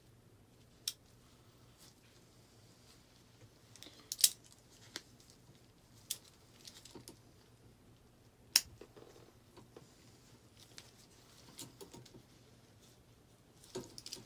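A metal clamp being opened and clamped onto a tied shirt: a few separate sharp metallic clicks, the loudest about four seconds in and another about eight and a half seconds in, then a quick flurry of small clicks near the end.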